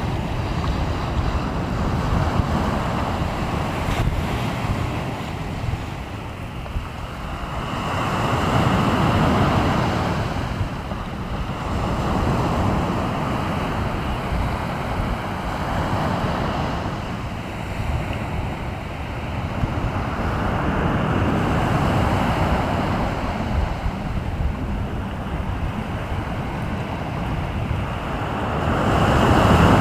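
Sea waves breaking and washing on the shore, the surf swelling and fading every few seconds, with wind rumbling on the microphone underneath.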